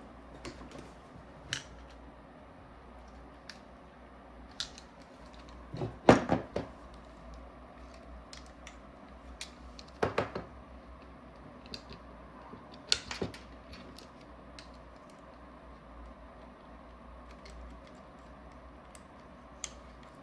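Scattered metallic clicks and knocks of an Allen key and small parts being worked on a paintball marker's regulator body, a screw that is very tight, with louder knocks about six, ten and thirteen seconds in.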